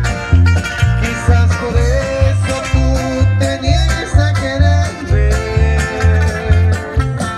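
A live band playing on stage through the PA, with a steady bass beat and sustained melody lines over plucked strings.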